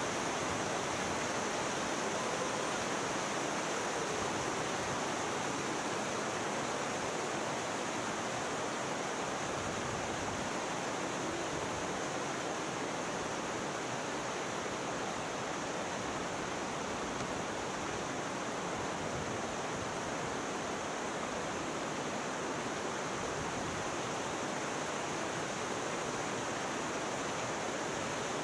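Mountain stream rushing over rocks and small cascades, a steady, even rush of water.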